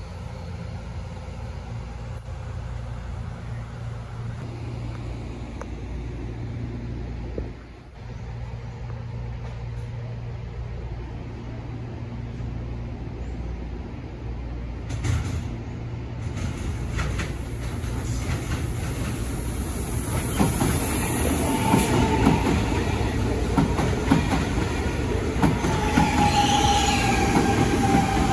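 A steady low hum under the station roof. Then an Alstom Series A electric multiple unit comes in and passes close, getting louder in the second half with rail clatter and a thin wheel squeal that comes twice, the second one sliding slightly lower near the end.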